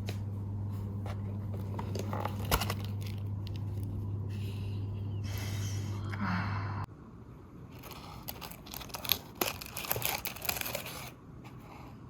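Close handling sounds, scraping and crinkling with a few sharp clicks, over a steady low hum that cuts off suddenly about seven seconds in.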